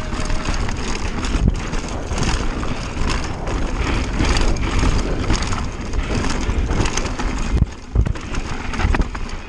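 Mountain bike descending a dirt trail at speed: tyres rolling and crunching over dirt and roots, with wind noise on the action camera's microphone and a run of knocks from bumps, the hardest a little before the end.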